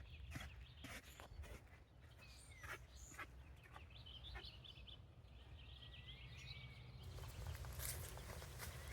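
Quiet footsteps in snow, with a few short bird chirps and one brief whistled bird call in the middle. A low wind rumble sits underneath.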